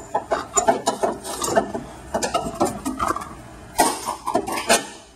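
Hand ratchet clicking in quick bursts with metal clinks as a socket on an extension turns an engine mount bolt. The loudest burst comes just before the end.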